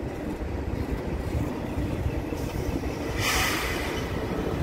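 Double-stack container freight train passing close by, its well cars rumbling steadily over the rails as the mid-train distributed-power diesel locomotive draws near. A brief high-pitched noise comes about three seconds in.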